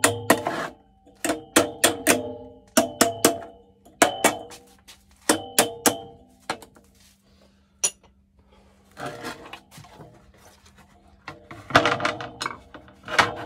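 A hammer striking a metal part, each blow ringing briefly. The blows come in irregular bunches, pause for a few seconds with some softer scraping, then resume in a quick run near the end.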